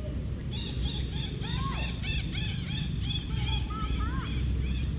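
Young macaques squeaking: a rapid run of short, high, arching calls, several overlapping, over a steady low rumble.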